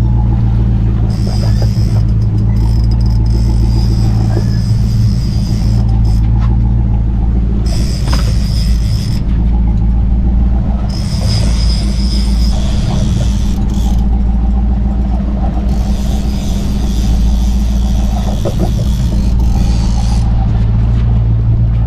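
Fishing boat's engine running steadily at trolling speed, a low drone, with a higher hiss that comes and goes.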